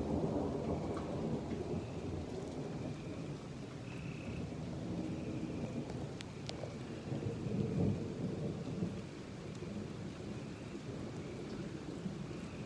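Thunder rumbling over steady gentle rain, the rumble swelling near the start and again about eight seconds in.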